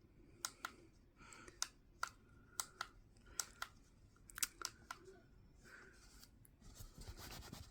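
Faint clicks of the buttons on a bedwetting alarm unit being pressed, about a dozen sharp clicks, often in quick pairs, followed by a soft rustle near the end.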